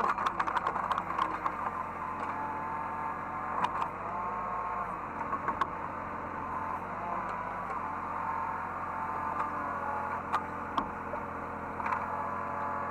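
Hydraulic excavator running, with a steady engine hum and a higher whine that rises and falls as the machine is worked. A few sharp clicks or knocks come through.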